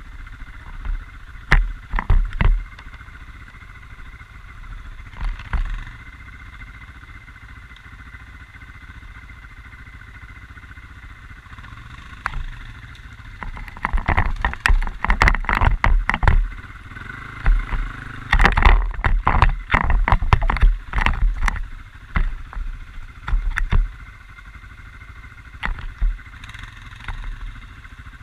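Quad bike (ATV) engine running steadily, with two spells of loud knocking, rattling and thumping around the middle.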